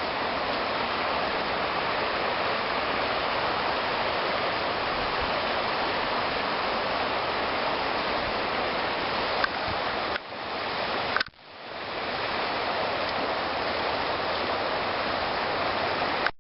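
Steady rushing of a fast-flowing creek, an even water noise that dips out briefly twice a little past the middle.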